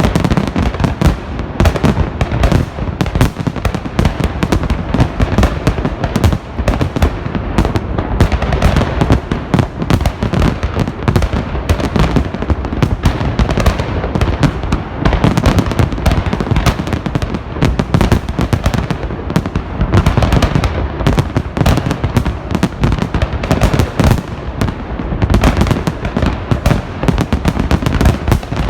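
Festive fireworks salute: a dense, unbroken barrage of firework shells launching and bursting, many bangs a second overlapping one another.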